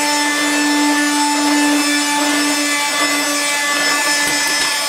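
Vax Supabroom cordless battery floor sweeper running on its old original batteries: a steady motor whine over the scratchy rubbing of its sweeper head being pushed back and forth across carpet.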